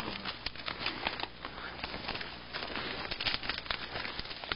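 Dense, irregular crackling and rustling of twigs, branches and leaves as someone pushes on foot through thick undergrowth.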